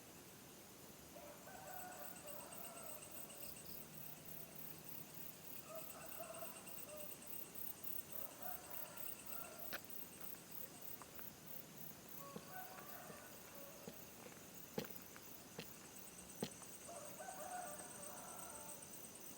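Night insects chirring steadily in high pulsing tones, with a distant call repeating about five times, each lasting roughly a second. A few sharp clicks come in the second half.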